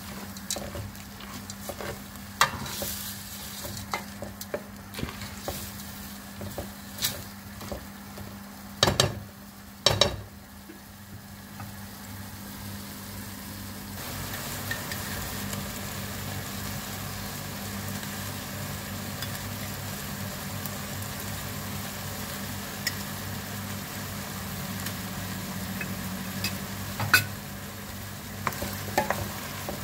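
Lentils and diced potatoes sizzling as they fry in oil in a metal pot, while a spatula stirs them, scraping and knocking against the pot; two louder knocks come about nine and ten seconds in. About halfway through the stirring stops and the steady sizzle goes on alone, with a few more clicks near the end.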